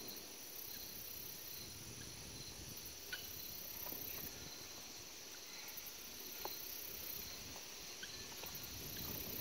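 Insects chirring steadily at a high pitch, with a faster pulsing layer above it and a few faint knocks.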